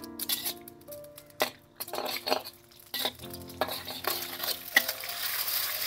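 A metal wok spatula scrapes and clicks against a steel wok as two eggs are scrambled in hot oil, with the eggs sizzling. The strokes come thick and fast at first, and the sizzle turns into a steadier hiss about five seconds in.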